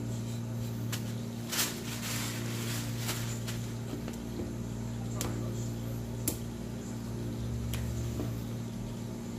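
A few short, sharp taps of a knife and raw halibut fillets being handled on a plastic cutting board, over a steady low mechanical hum.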